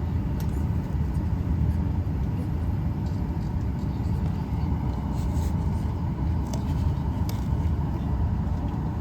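Steady low rumble of an airliner cabin before pushback, with a faint steady hum and a few light ticks.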